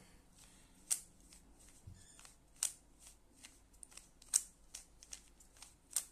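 Rubik's cube being turned by hand: irregular plastic clicks and snaps as the layers are rotated, a few sharper than the rest.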